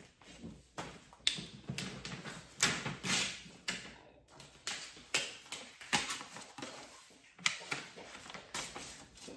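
Paper envelope being torn open and a greeting card slid out of it: an irregular run of crisp paper rustles and tears.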